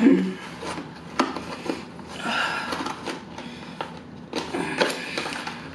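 Clear plastic dome lid of a black plastic takeout container crackling and clicking as it is pried off by hand, in irregular snaps and crinkles.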